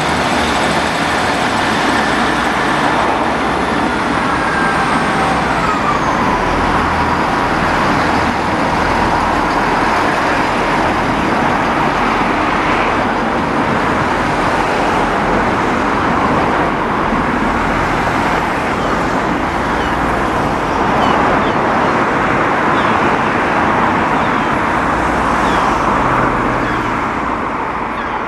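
Loud, steady noise of vehicles running close by, with a faint whine that falls in pitch about five seconds in.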